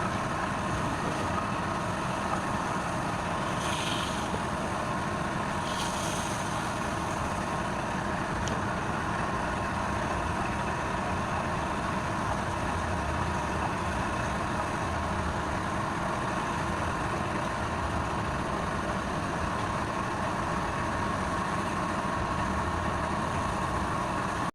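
Wood lathe's electric motor running steadily with a constant hum. Two brief hissing sounds come a few seconds in.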